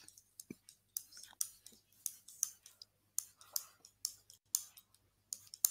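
Computer mouse button clicks, often in press-and-release pairs, one pair for each tally line drawn on a digital whiteboard, two to four clicks a second. A faint steady hum runs underneath.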